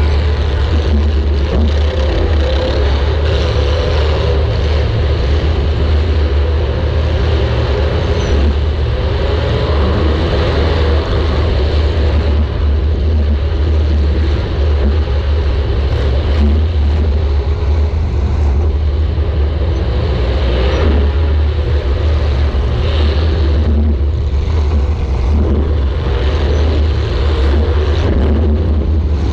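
Demolition derby compact car's engine running loud and steady from onboard the car, with a deep rumble and a few faint knocks of contact.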